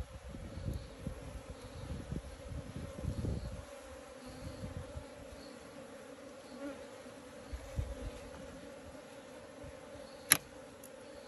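Honeybees buzzing steadily, with irregular low rumbles in the first few seconds and a single sharp click about ten seconds in, the loudest sound.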